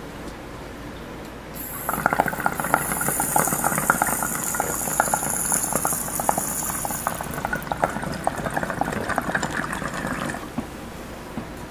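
Water bubbling in a hand-blown glass oil rig as air is drawn through it, a dense gurgle starting about two seconds in and stopping near the end. A high hiss runs with it through the first half.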